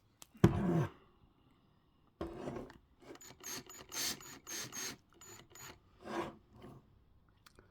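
Small hand drill with its bit jammed in a plastic action-figure foot, run in short trigger bursts: one brief spin that winds down in pitch about half a second in, then a string of quick stuttering bursts as it tries to work the stuck bit free.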